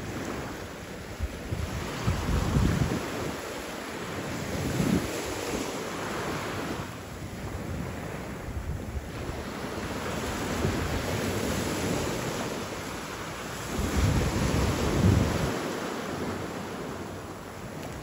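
Small waves breaking and washing up a sand-and-pebble shore: a steady surf hiss that swells and ebbs. Wind rumbles on the microphone in gusts, strongest a few seconds in and again near the end.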